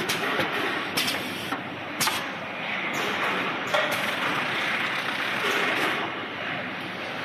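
Automatic carton erecting and filling line running: a steady mechanical clatter of conveyors and machinery, with a few sharp knocks from the carton handling.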